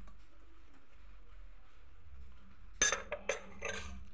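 Three or four quick clinks and a short scrape of a metal spoon against glass dishware, about three seconds in.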